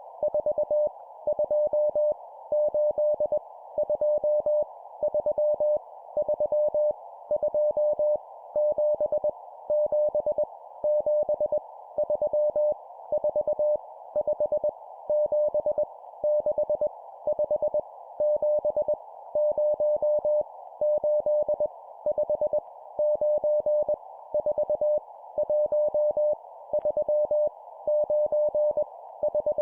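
Morse code (CW) tone of about 600 Hz keyed at 20 words per minute, sending random numbers as quick dots and dashes in short bursts with brief gaps between them, over a steady band of hiss.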